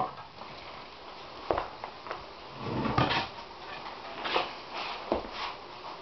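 Split firewood logs knocking and scraping against each other and against the steel firebox as they are loaded by hand into a wood-burning furnace. The knocks come one by one, about every second, with a louder bunch about three seconds in.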